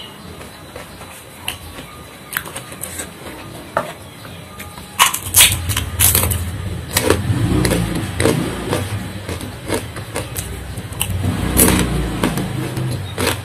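Crackling of a plastic food container and its contents being handled about five seconds in, followed by close-miked chewing with crunches and mouth clicks.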